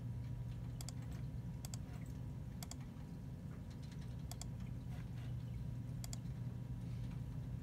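Computer mouse clicking: five sharp double clicks, spaced one to two seconds apart, over a steady low hum.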